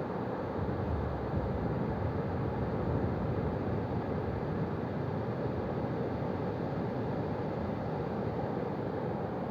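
Ocean waves on a beach: a steady wash of surf that swells a little between about one and three seconds in.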